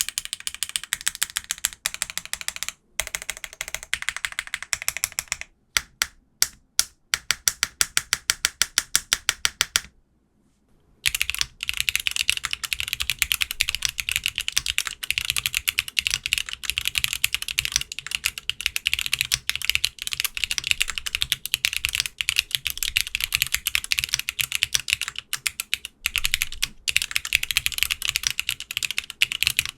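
Mechanical keyboard typing on a modded LX60 aluminium custom keyboard: keystrokes on HMX Sunset Gleam linear switches, ending in a fast run of evenly spaced strokes. After a pause of about a second, typing goes on steadily on lubed MX2A Black switches.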